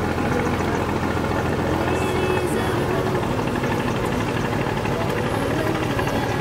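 Boat engine running steadily: a constant low hum under dense noise, with faint voices.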